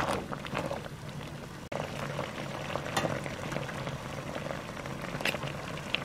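Pot of water at a rolling boil with eggplant pieces in it on high heat, bubbling steadily, with a few sharp clicks of utensils against the pot.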